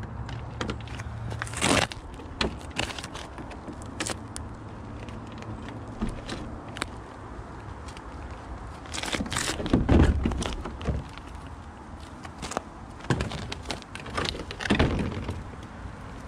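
Clicks, rustles and knocks of a 1/5-scale RC rally car's plastic body shell being handled, pulled off the chassis and set down. Louder knocks come about 2, 10 and 15 seconds in, and the one near 10 seconds is the loudest, with a low thud.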